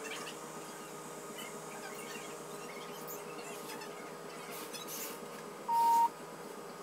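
A single short beep, one clear high tone lasting under half a second, near the end, over a steady low hum.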